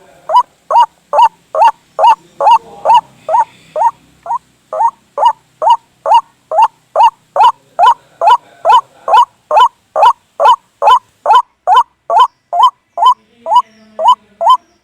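White-breasted waterhen calls in a lure recording: a harsh note, each sharply rising in pitch, repeated steadily a little over twice a second without a break.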